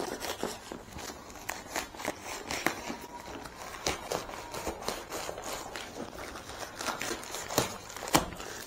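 Knife slitting open a plastic courier mailer bag: irregular scratchy crackles and rustles of the plastic as the blade and hands work along the edge.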